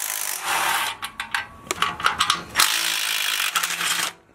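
Socket ratchet working bolts loose: a run of fast ratcheting at the start, a scatter of short clicks, then a second long run that stops abruptly just before the end.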